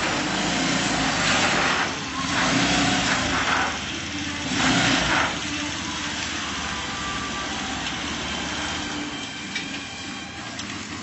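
Small engine of a three-wheeled motor tricycle running as it drives up and slows, with three louder surges in the first five seconds before it settles to a steadier run.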